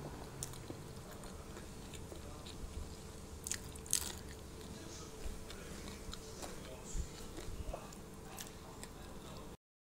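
Someone biting and chewing fried tofu, with scattered crunches from the crisp fried crust, the loudest about four seconds in. The sound cuts off suddenly near the end.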